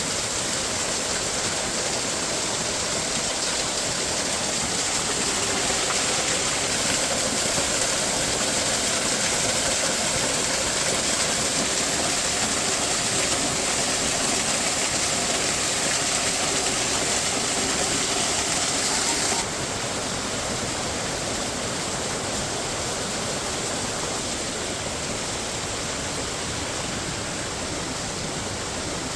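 Rushing water: a steady noise that drops abruptly in level about 19 seconds in.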